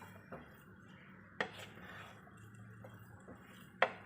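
A spoon knocking and clinking against a pan while mashed potato vada filling is stirred: a few sharp clinks, the last near the end the loudest.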